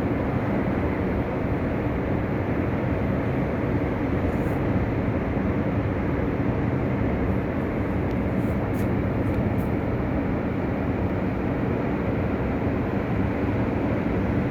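Rough sea surf giving a steady, unbroken low roar of heavy waves.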